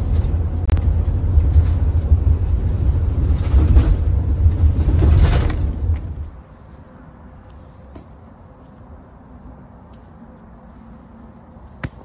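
Steady low rumble of road noise inside a moving vehicle's cabin, which cuts off about halfway through. Then a quiet outdoor background with a steady, high-pitched insect trill.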